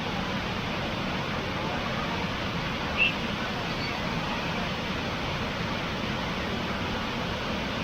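Steady rushing of water falling at the Erawan waterfall cascades. About three seconds in there is one brief, louder high sound.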